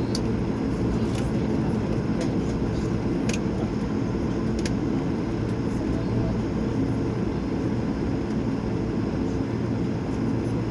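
Steady cabin noise of an Airbus A220 taxiing in to park, its Pratt & Whitney PW1500G geared turbofans at idle giving a low, even hum. A few faint clicks come through in the first half.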